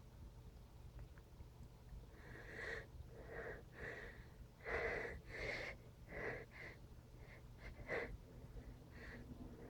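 A person making a string of about a dozen short, quiet, wheezy breaths, starting about two seconds in, between sneezes.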